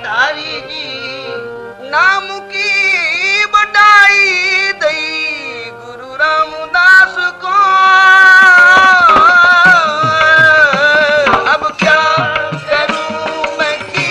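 Sikh kirtan: a voice singing long, ornamented lines over tabla strokes and sustained harmonium notes.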